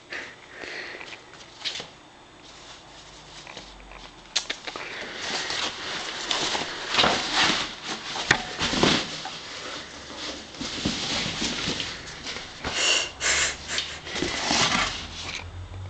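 Cardboard rustling and scraping in irregular bursts as a cat scrambles in and around a cardboard box and it is shifted about. It is sparse at first and gets busier from about four seconds in.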